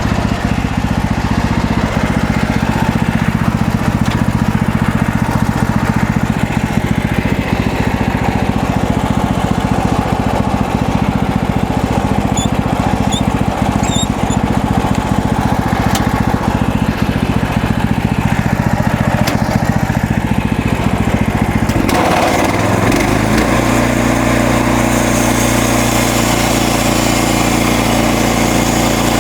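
MechMaxx SM32 band sawmill's gasoline engine running steadily. About two-thirds of the way through, its note shifts to a new steady pitch and a hissing rasp rises above it.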